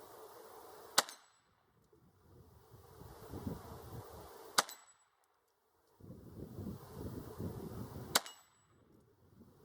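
.22 semi-automatic pistol firing three single shots, about three and a half seconds apart. It is loaded with Federal Auto Match ammunition, which has been giving this pistol feeding issues.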